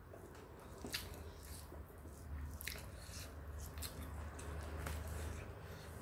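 Chewing a mouthful, with small squishes as fingers mix rice into chili sambal in a stone mortar and a few sharp clicks, over a low steady hum.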